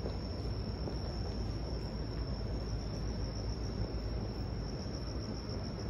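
Outdoor night-time city ambience: a steady low rumble with a continuous high-pitched tone held on one pitch over it.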